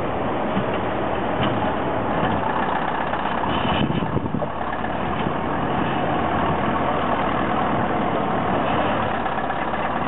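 Diesel engine of an old crawler bulldozer running steadily under load as its blade pushes a large boulder.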